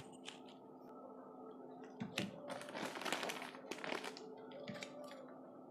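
Plastic bubble mailer crinkling and crackling faintly as it is handled, with scattered clicks; the rustling is heaviest from about two to four and a half seconds in.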